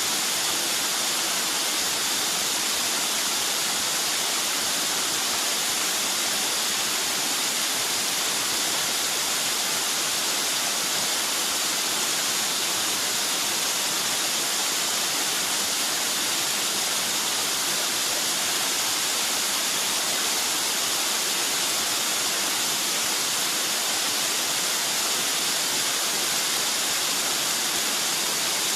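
Water of a rocky mountain stream rushing and splashing steadily, with no change in level.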